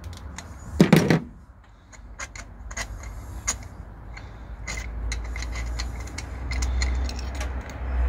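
Hand tools working on a car engine during a spark plug change: irregular metallic clicks and taps from a ratchet and extension in the spark plug well, with a louder clatter about a second in. A low rumble builds underneath from about five seconds in.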